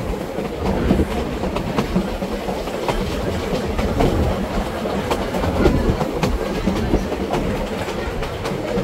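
Train of vintage coaches behind a steam locomotive rolling along jointed track: a steady rumble with irregular clicks as the wheels cross rail joints.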